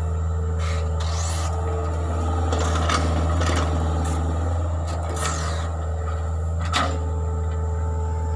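Hitachi Zaxis 48U mini excavator's diesel engine running at a steady pitch, under a steady higher tone, while the bucket scrapes and knocks against the soil several times as it digs and shapes the earth.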